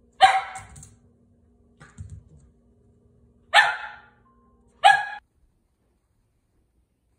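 Puppy barking: three short, sharp barks, the second and third close together, with a softer sound about two seconds in.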